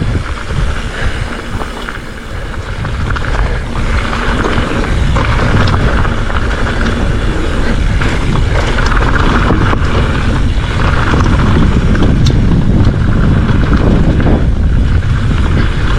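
Wind buffeting the action-camera microphone at riding speed, with the tyres of a Specialized Fuse hardtail mountain bike rumbling over a dirt singletrack and a few small clicks. It dips for a couple of seconds near the start, then builds and stays loud.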